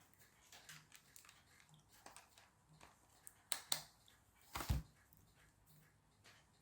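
Quiet handling noise: faint small clicks and taps, with two louder short knocks about three and a half and four and a half seconds in, as small objects are picked up and set down on a work surface.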